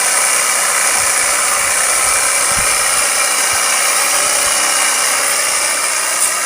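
Pressure washer running, its water jet spraying in a steady hiss as it cleans a motorcycle.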